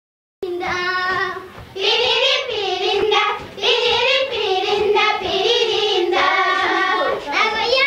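A group of young Maasai girls singing a dance song together, in phrases with short breaks. The singing starts suddenly about half a second in.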